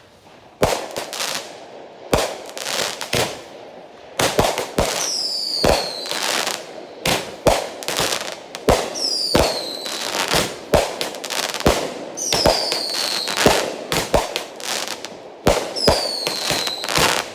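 Miracle Fireworks 'Men of Honor' firework going off: a run of sharp, loud bangs with crackle between them. A high whistle falls in pitch about every four seconds.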